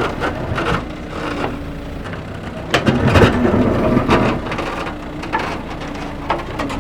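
Irregular clicks and knocks of small hard pieces being handled and set down, over a steady mechanical hum.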